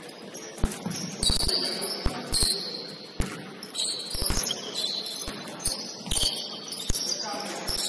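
Basketball bouncing on a gym court, single bounces and quick runs of dribbles, mixed with many short, high sneaker squeaks from players moving on the floor.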